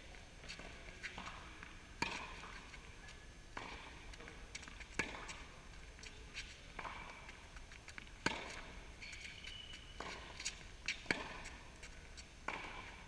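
Tennis rally on an indoor court: tennis balls struck by rackets and bouncing, a sharp pop every one to three seconds, each echoing briefly in the large hall.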